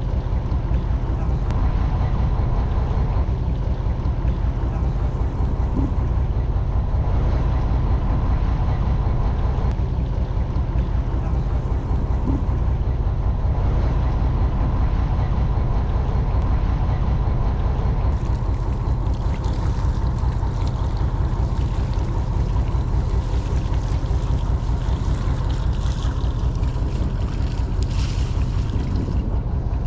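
Fishing boat's engine running steadily as a low hum.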